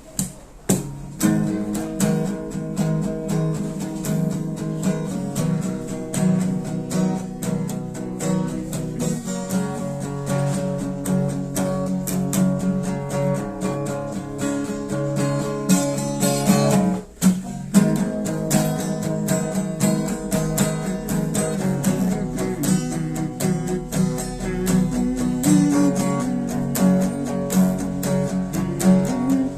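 Instrumental gospel music: strummed acoustic guitar with held chords. It drops out for a moment a little past halfway.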